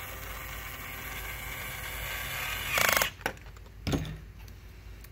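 Kid Nitro battery-powered toy power drill whirring steadily as it drives a red plastic screw into the plastic car chassis. It ends in a short loud rattle about three seconds in, followed by a couple of sharp clicks.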